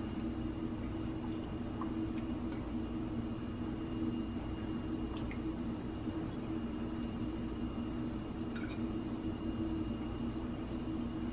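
A steady low hum with a faint hiss, and a few soft, faint splashes as pieces of peeled yuca are slipped into a pot of hot water.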